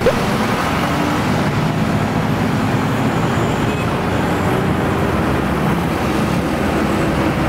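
Steady road traffic noise heard from a moving car: engines and tyres of cars and motorbikes running close alongside on a busy city road.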